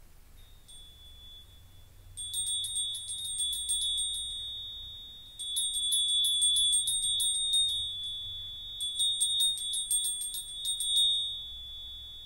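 A small hand bell rung in three bouts of rapid strokes, about five a second, its single high ring carrying on between the bouts and after them.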